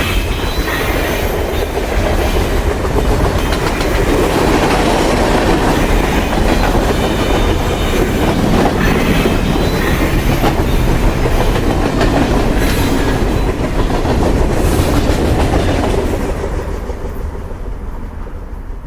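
Train passing close by, its wheels clattering rhythmically over the rail joints. The noise fades away over the last few seconds as the train moves off.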